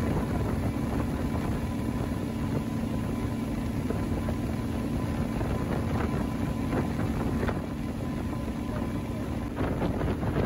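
Speedboat engine running steadily at speed, a constant low drone, with wind buffeting the microphone. Near the end the engine note drops under a louder rush of wind.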